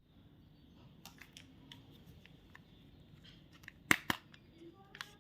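Candy packaging being handled and opened: scattered small crackles and clicks, with two sharp clicks in quick succession about four seconds in.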